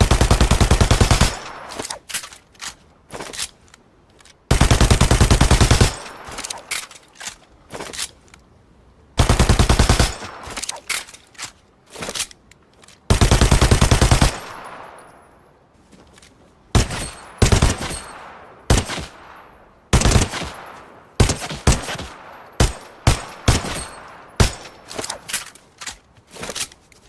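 Machine pistol firing on full automatic: four long bursts of very rapid shots, each a little over a second, followed by a string of short bursts and single shots, with small clicks in the gaps.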